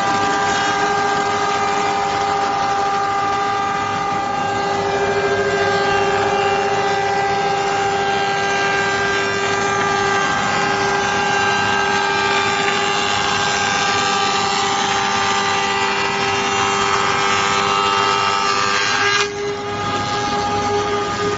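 M623 high-speed four-side moulder running, its cutterheads machining a timber board into a grooved profile: a loud, steady whine made of several tones, with a hiss of cutting over it. About 19 seconds in, the higher part of the sound drops away suddenly and the lower whine carries on.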